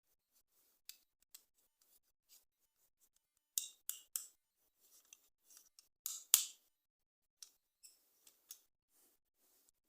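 Irregular crisp clicks and snips of toy packaging being opened by hand. They come loudest in a quick run of three about three and a half seconds in and a pair around six seconds in.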